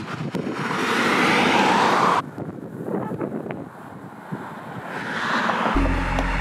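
A road vehicle passing close by, its noise swelling and then cutting off abruptly about two seconds in. Then comes a quieter stretch of light rustling and small clicks. Near the end traffic noise swells again and low, deep music comes in.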